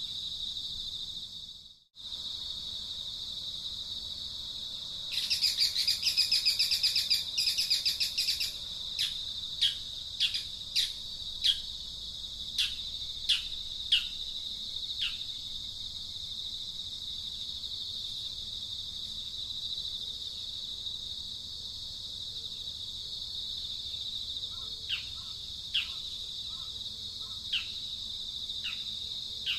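A steady high insect drone under bird calls: a rapid chattering trill about five seconds in, then a string of short, downward-sweeping notes, and a few more near the end. The sound drops out briefly about two seconds in.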